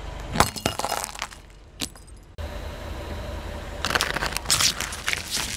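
Car tyre rolling onto a glass light bulb, which breaks with a sharp pop and a crackle of glass about half a second in and a second crack a little later. Then, under a low engine rumble, the tyre crushes plastic cups full of water beads in a dense crackling and squishing burst near the end.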